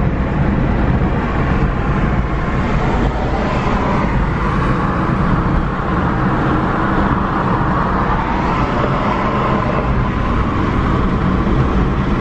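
Car driving at highway speed, heard from inside the cabin: a steady rumble of tyre and wind noise with a faint wavering whine in the middle.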